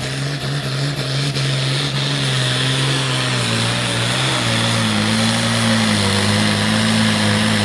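Pro Farm class pulling tractor's diesel engine running flat out under load while pulling the sled, a loud steady drone. About halfway through its note drops a little and holds lower as the sled bears down.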